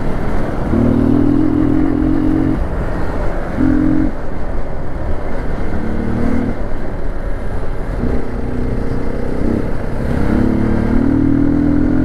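Hero XPulse 200 4V's single-cylinder engine running as the motorcycle is ridden. The engine note swells and falls with the throttle several times, with a rising rev near the end.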